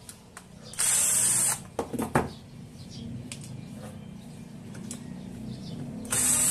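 Cordless drill-driver running in two short bursts, about a second in and again near the end, turning the screws of a sheet-metal power-supply bracket, with a few knocks around two seconds in.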